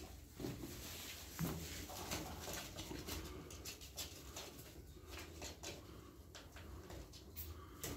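Turkish tumbler pigeons moving about a loft floor, with scattered light taps and a brief wing flutter among soft pigeon sounds.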